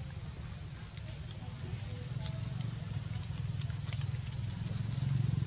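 Low engine hum that grows louder toward the end, over a steady high-pitched buzz with scattered faint clicks.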